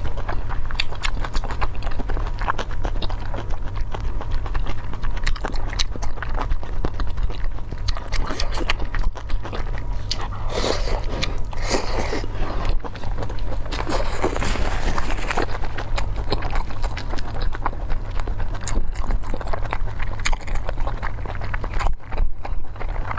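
Close-miked eating: a person chewing and biting food, a dense run of small mouth clicks with no pauses.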